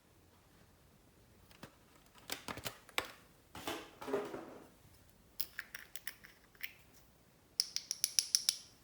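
Close-up handling of slime and small items being mixed into it: scattered sharp clicks and crackles, a short rubbing sound about three and a half seconds in, and two quick runs of bright clicks near the end.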